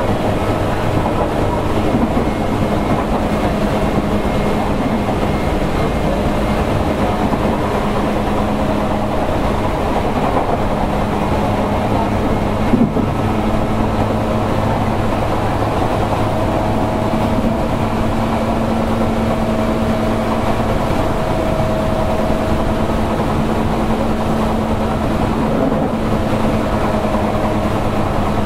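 Onboard running sound of a Tokyu 8500 series electric train, heard from inside a motor car, running steadily along the line. A steady low hum and rolling noise go on throughout, with a single short knock about 13 seconds in.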